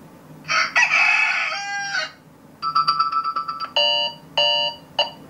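Dragon Touch Classic 10 Elite digital picture frame's built-in speaker previewing alarm ringtones. First comes a recorded rooster crow, the loudest sound, starting about half a second in and lasting about a second and a half. Then come electronic alarm tones: a fast run of short beeps, followed by three short chimes.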